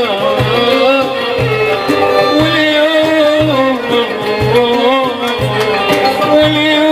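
Traditional Touat folk music from southern Algeria: an ornamented, wavering melody line over low hand-drum beats in a steady rhythm.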